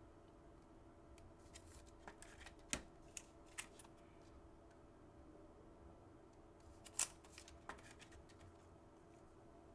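Football trading cards being handled and flipped through: a few faint clicks and snaps of card stock, the sharpest about seven seconds in, over a low steady room hum.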